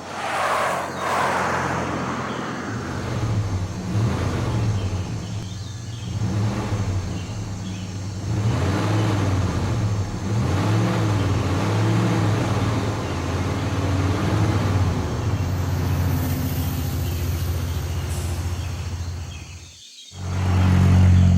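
Cartoon vehicle engine sound effect running steadily, its pitch rising and falling in the middle as it revs. It cuts out abruptly for a moment near the end, then comes back louder.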